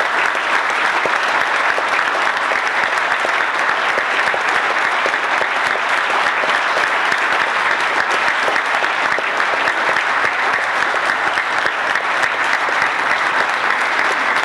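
A large crowd applauding steadily: many people clapping at once in a dense, even patter.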